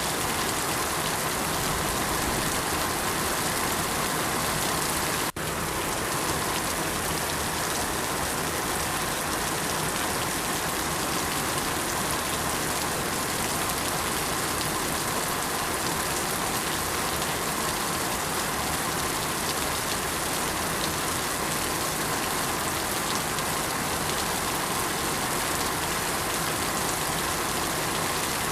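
Steady rain falling: an even, dense hiss of many drops on surfaces, with one momentary dip in level about five seconds in.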